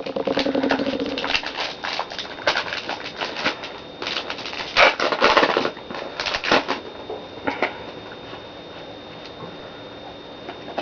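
Foil Pokémon booster pack being torn open and crinkled, with a run of crackling rustles that dies down after about seven seconds.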